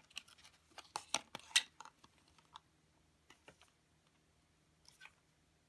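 Fold-out cardboard VR viewer being handled and folded up: a quick run of light clicks and taps of card, thickest in the first two seconds, then a few scattered taps.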